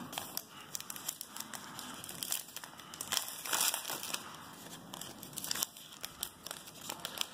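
Plastic wrapper of a 2017 Topps Allen & Ginter trading-card pack crinkling and tearing as it is ripped open by hand, a run of crackles that is loudest about three to four seconds in.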